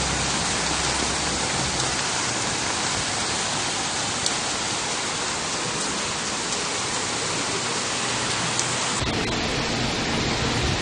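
Heavy rain pouring onto paving and floodwater, a steady hiss. Near the end the sound changes character and a faint low hum comes in.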